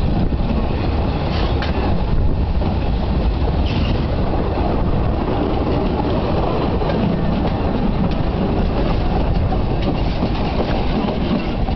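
Narrow-gauge railway carriages rolling past on the track, a steady rumble of wheels on rails with a few sharp wheel clicks in the first few seconds.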